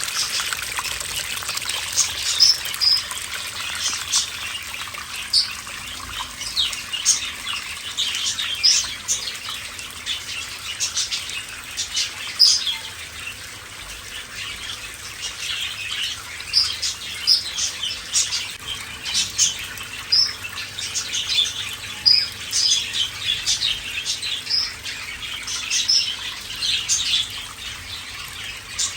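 Small birds chirping many times a second in short, overlapping high calls, over the steady rush of water from a small artificial waterfall.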